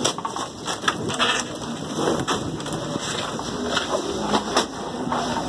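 Crushed ice rattling and crunching as sacks of ice are loaded into a fishing boat's ice hold, with irregular sharp knocks throughout.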